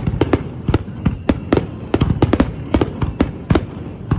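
Fireworks exploding in quick succession: a rapid, irregular string of sharp cracks and booms over a continuous low rumble.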